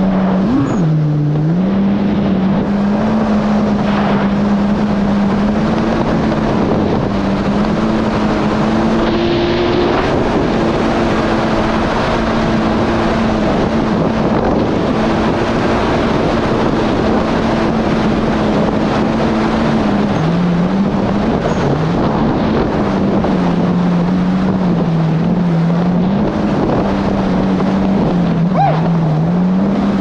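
Yamaha GP1800R SVHO jet ski's supercharged four-cylinder engine running steadily under way, over a loud rush of water and wind. About two-thirds of the way through, its pitch drops, then rises and falls as the throttle changes.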